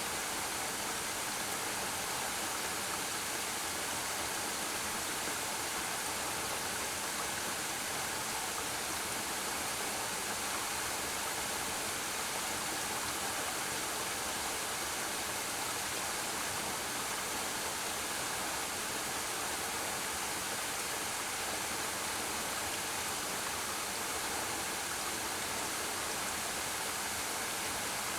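Waterfall pouring steadily: an even, hissing rush of falling water that does not change or break.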